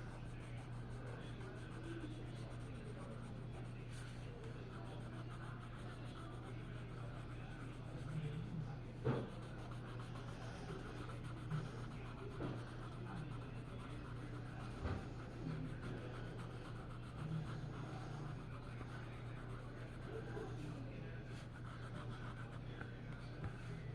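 A pen or pencil scratching and rubbing on paper while drawing, with a few light taps, over a steady low electrical hum.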